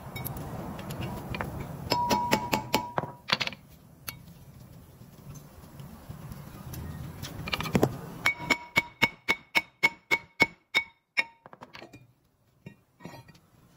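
Sharp metallic knocks on a brake rotor, each with a short ringing tone. There is a quick cluster about two seconds in, then a steady run of about four knocks a second from around eight to eleven seconds, while the rotor is being worked loose from the hub.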